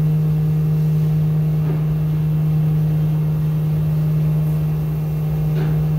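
Steady loud machinery hum of a hydraulic truck dumper raising a loaded wood chip trailer high into the air while sawdust pours out of it.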